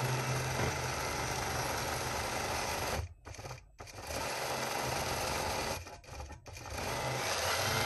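Computer-guided longarm quilting machine stitching steadily through the quilt layers, with a low motor hum under the needle's rapid chatter. The sound drops out briefly twice, about three and six seconds in.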